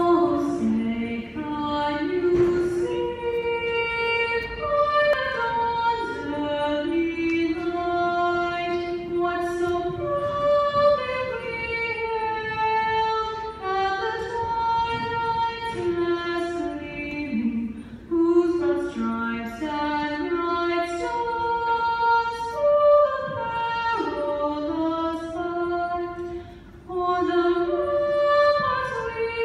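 A teenage girl sings the national anthem solo into a handheld microphone, with no accompaniment. The melody moves in long held notes that rise and fall.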